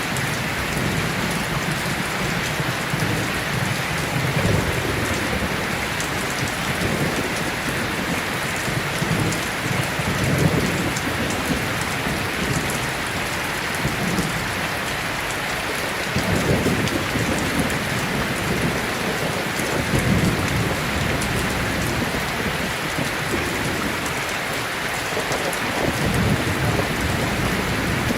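Steady, dense rain hiss, with low rumbles swelling up every few seconds.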